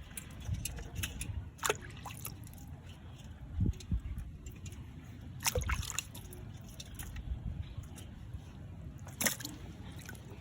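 Water sloshing and trickling, with a few sharp clicks and knocks scattered through it.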